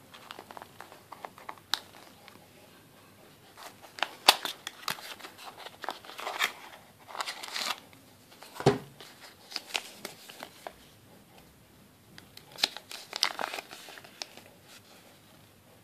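A small cardboard box handled and opened by hand, then paper rustling and crinkling as a folded instruction sheet is pulled out and unfolded, with scattered clicks and a knock about halfway through.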